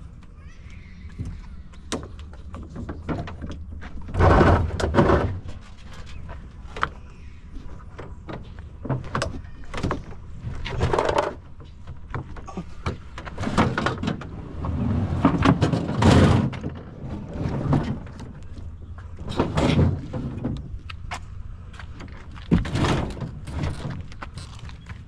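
Scrap items being handled and loaded: a series of clunks, bangs and scrapes every second or two, over a steady low rumble from a running vehicle.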